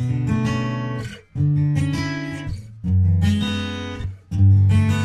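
Background music: an acoustic guitar strumming chords, each ringing on for a second or so before the next strum.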